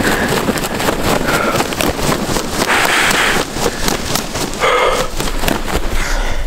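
A freshly shot wild turkey gobbler, held up by the neck, beating its wings in death throes: rapid, repeated wing flaps. A short voice-like call near five seconds in.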